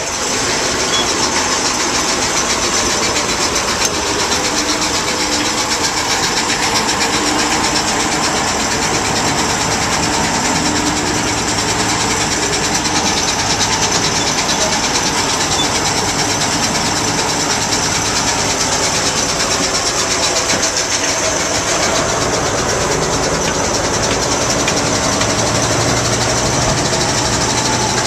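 British Rail class 03 diesel shunter on the move, heard from its front running board: its Gardner eight-cylinder diesel engine runs steadily under the wheel-on-rail noise of the moving locomotive, and a deeper engine note comes in near the end.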